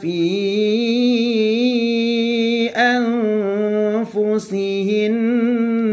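A man reciting a verse of the Quran in a slow, melodic chant, holding long drawn-out notes with a slight waver and pausing briefly twice.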